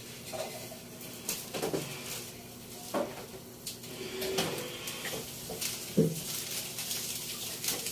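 Kitchen clatter: scattered clinks and knocks of dishes and utensils being handled, about one a second, with the loudest knock about six seconds in.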